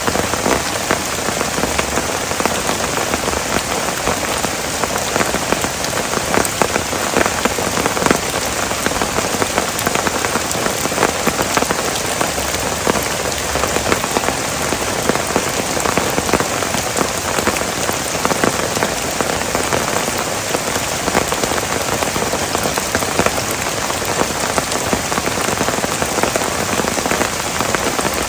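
Heavy rain pouring steadily, with many separate drops ticking close by.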